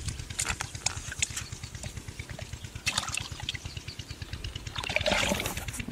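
Wet mud squelching and water splashing as a hand digs and gropes inside a flooded fish burrow, with scattered sharp wet clicks and a louder sloshing burst near the end, over a low steady rumble.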